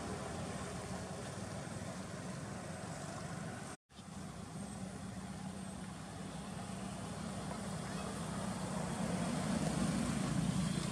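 Steady low rumble of a motor vehicle engine, growing louder in the last few seconds as if the vehicle is drawing nearer. The sound cuts out completely for a moment about four seconds in.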